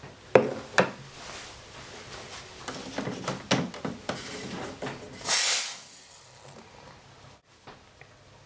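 Nuova Simonelli Oscar espresso machine after a shot: scattered light clicks and knocks, then a brief hiss about five seconds in.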